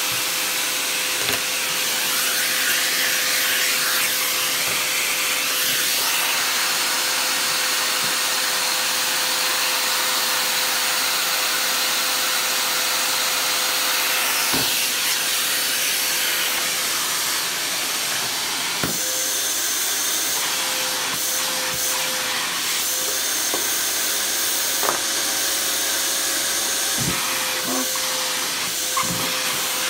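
Electrolux 725 vacuum cleaner running steadily: a hissing rush of air over a steady hum, with a few short knocks.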